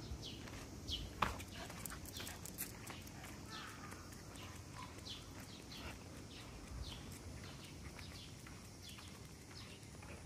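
Faint outdoor chorus of many short, high, falling chirps from birds and insects, one or two a second. Under it are the light steps of a Shiba Inu walking on a leash over asphalt.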